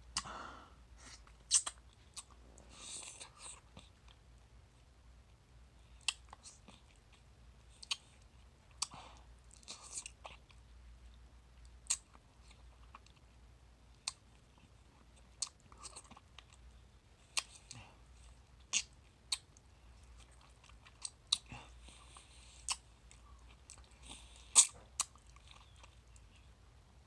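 Close-up mouth sounds of eating a ripe mango: wet sucking, lip smacks and chewing on the soft, stringy flesh. These come as scattered sharp clicks and short slurps, with quiet between them.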